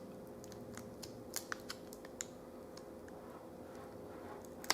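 Faint, scattered small clicks and ticks of fingers working a laptop's LCD display cable connector loose, with a sharper click near the end, over a faint steady hum.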